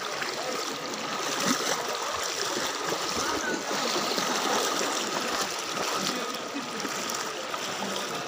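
Floodwater splashing and sloshing steadily around a person's legs as they wade through it.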